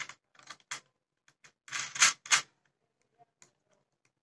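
Irregular small clicks and taps of a screw and plastic-and-metal telescope parts being handled as the screw is fitted into a bracket, with a louder run of clicks about two seconds in.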